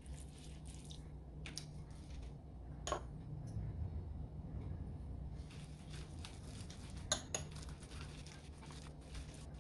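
Gloved hands rubbing a thick gochujang marinade into chicken thighs: soft wet squishing and handling noises, with a few sharp clicks about 3 and 7 seconds in, over a steady low hum.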